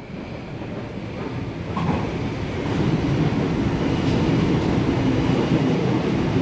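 Sydney Trains Waratah double-deck electric train running past the platform at speed. Its rumble and wheel noise build over the first two to three seconds and then hold steady and loud.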